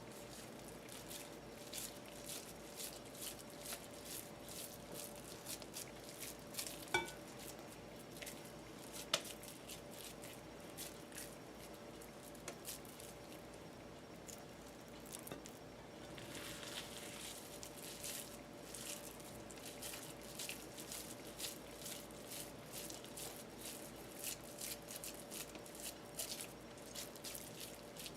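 Hands patting and squishing raw ground beef into patties: soft, wet pats repeating quickly throughout, with two sharper clicks about seven and nine seconds in.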